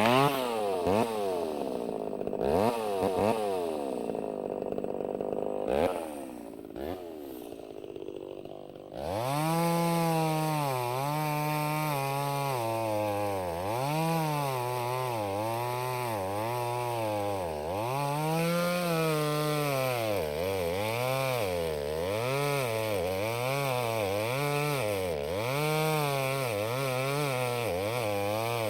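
Two-stroke chainsaw engine revved and let fall several times, then from about nine seconds in revved up and down continuously, rising and falling in pitch roughly once a second.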